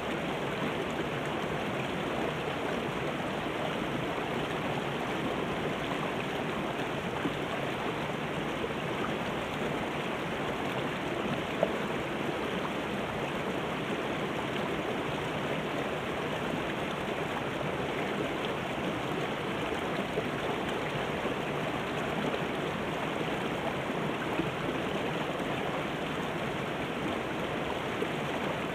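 Shallow mountain river running over boulders and rock ledges: a steady rush of water with small splashes.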